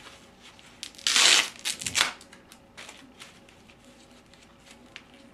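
Packing wrap rustling and crinkling as it is pulled off a glass Tungar rectifier bulb, loudest in a burst about a second in, with quieter rustles after.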